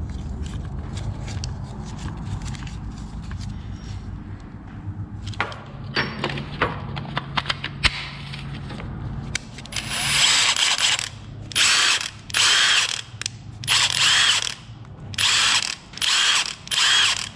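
Milwaukee M18 FUEL cordless impact wrench run with no load in about seven short trigger pulls, the motor whining up with each one. Light clicks of handling and the battery going on come first. This is the test run after the tool was taken apart and cleaned.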